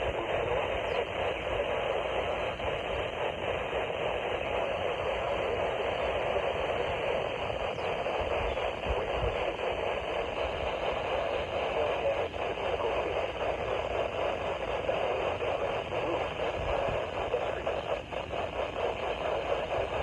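Steady hiss of radio static from a receiver tuned to a weather alert broadcast, with no voice.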